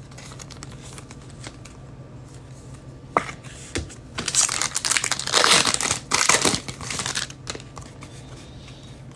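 Trading-card pack wrapper being torn open and crinkled: a sharp tick about three seconds in, then a few seconds of crinkling and tearing, over a steady low hum.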